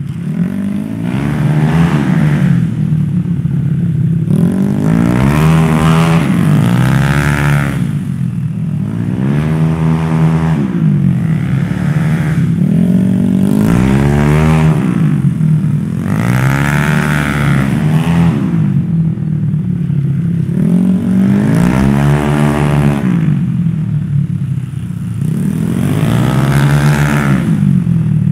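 Tuned Yamaha Mio scooter with a bored-up 150cc single-cylinder engine, revved up and let off again and again as it accelerates and brakes through tight cone corners. Its pitch rises and falls every two to three seconds over a steady low drone.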